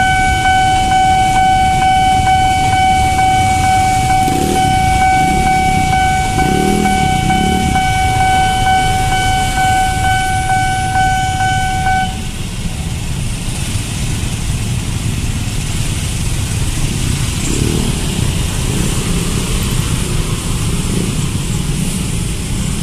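Railway level-crossing warning alarm sounding one steady, high electronic tone, cutting off about halfway through once the KRL commuter train has passed. Underneath, the rumble of motorcycles and cars queued at the crossing.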